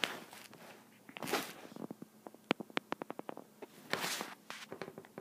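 Stylus clicking and sliding on a tablet screen as straight lines are drawn: faint light clicks, a quick run of them about halfway through, between two short swishes.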